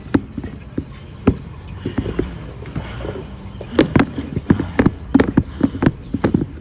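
Foley footsteps running: a series of sharp impacts over a low rumble, spaced out at first, then quicker at several a second from about four seconds in.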